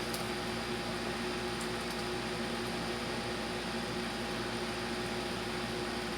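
Steady electrical-motor hum with an even hiss and a few constant tones, unchanging throughout; no distinct events.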